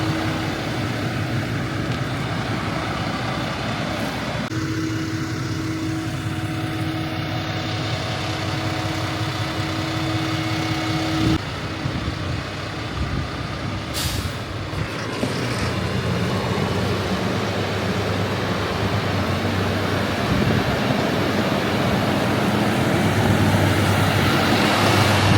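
Tractor engine running steadily, with a brief sharp sound about halfway and the engine growing louder over the last few seconds.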